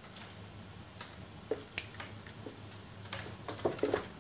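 Faint, irregular small clicks and taps over a steady low hum, with a quick run of louder clicks near the end.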